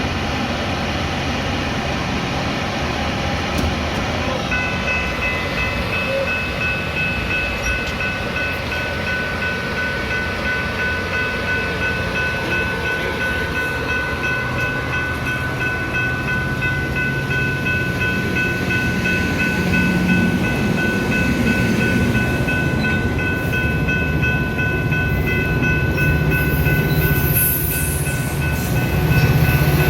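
Metra commuter train running with a steady low rumble. A steady high whine sets in about four seconds in and holds, and the low rumble builds over the last ten seconds.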